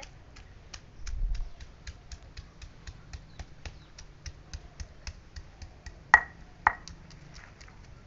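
Stone pestle pounding on a flat stone grinding slab (sil-batta), crushing grains for chutney: a steady run of sharp taps, about four a second, with two louder clacks about six seconds in.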